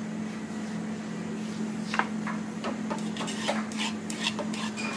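Metal utensil clinking and scraping against a pan as pasta is tossed with grated pecorino to form the cacio e pepe cream: irregular clicks that begin about two seconds in and come thicker toward the end, over a steady low hum.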